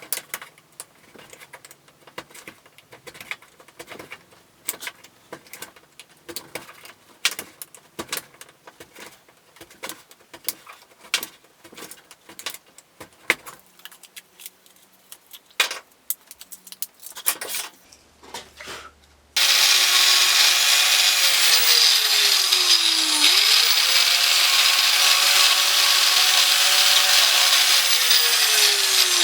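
Scattered clicks and knocks of small hard parts being handled, then about two-thirds of the way in a small electric motor starts suddenly and runs loudly. Its whine drops in pitch, comes back up and drops again, as when it is loaded.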